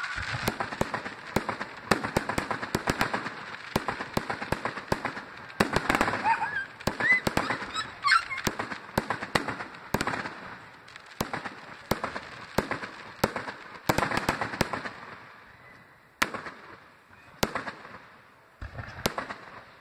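Fireworks display going off: a dense run of sharp bangs and crackling pops that thins out to a few separate bangs in the last few seconds.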